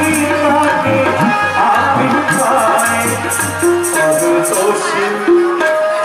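Devotional bhajan performed live: a male voice singing to harmonium, with tabla and rattling hand percussion keeping a steady beat.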